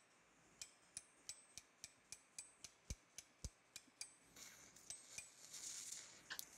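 Faint, quick metal-on-metal taps, about four a second, of a mallet driving a femoral broach into the canal during hand broaching. A soft hiss follows near the end.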